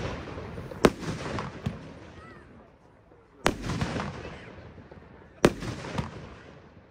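Aerial firework shots bursting overhead: three sharp bangs about two and a half seconds apart, each trailing off over about a second. A smaller pop follows the third bang.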